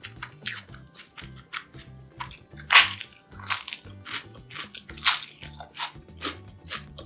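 Crisp battered fried food (Korean twigim) being bitten and chewed close to the microphone: a string of crunches, several of them loud and sharp, among softer chewing. Quiet background music plays underneath.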